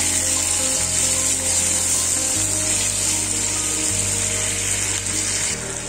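Sliced onions frying in hot mustard oil, sizzling steadily while a wooden spatula stirs them, over background music with low held notes that change every second or so.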